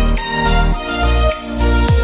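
Instrumental background music with pitched notes over a steady beat.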